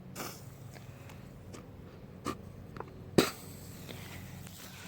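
A few light clicks and knocks, the loudest a sharp knock about three seconds in, over a faint steady low hum.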